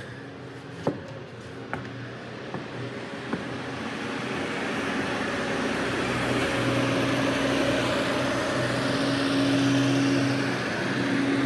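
A motor vehicle engine running nearby with a steady low hum, growing louder over the first half and then holding steady. A few sharp knocks sound in the first few seconds.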